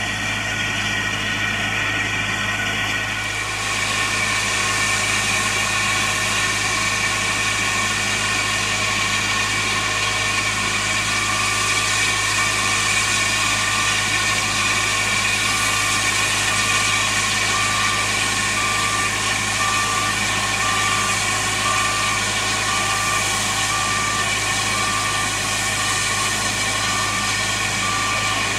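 A steam tank engine standing at a platform, giving off a steady steam hiss over a continuous low hum. The hiss rises and broadens a few seconds in, then holds level.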